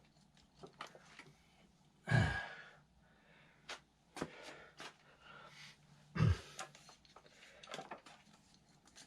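Scattered light clicks and taps of hand tools on a small motorcycle engine during top-end disassembly, with two louder heavy exhales of effort about two and six seconds in.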